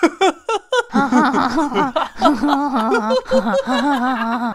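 A cartoon character's voice laughing: a few short chuckles, then from about a second in a long, wobbling, drawn-out laugh.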